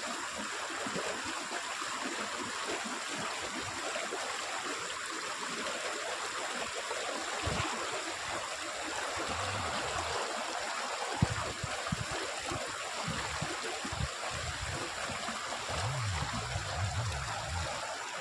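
Water flowing and trickling steadily through a rice paddy field. A single brief knock sounds about eleven seconds in.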